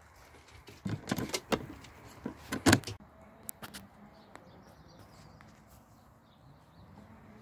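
A handful of sharp knocks and clatters over about two seconds, the loudest just before the three-second mark. After that only a faint, steady outdoor background remains.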